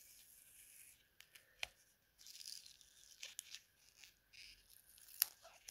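Small folded paper wrapper of a miniature replica baseball card pack being pulled open by fingers: faint crinkling and tearing of paper, with a couple of sharp ticks.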